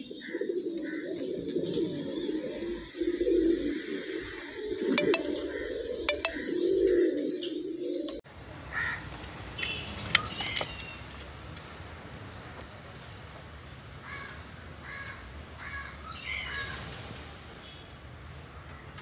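Pigeons cooing, a low wavering sound with a few sharp clicks. About eight seconds in it changes abruptly to a quieter background with short, repeated higher calls of birds.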